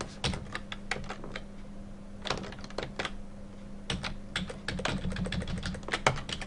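Computer keyboard keys clicking in irregular runs of keystrokes as code is edited, over a steady low hum.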